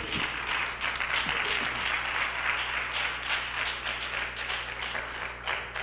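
Congregation applauding: many hands clapping in a dense, steady patter that tapers off near the end.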